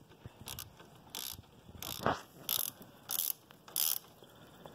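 Socket ratchet clicking in short bursts, one stroke after another, as it tightens the oil drain plug on a GY6 50cc scooter engine.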